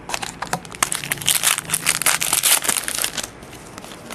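A wrapper on a pack of 2010 Prestige football cards being torn open and crumpled: a dense crinkling crackle that lasts about three seconds, loudest in the middle.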